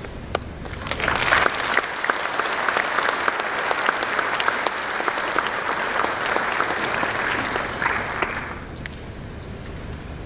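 Audience applauding, starting about a second in and dying away a little before the end.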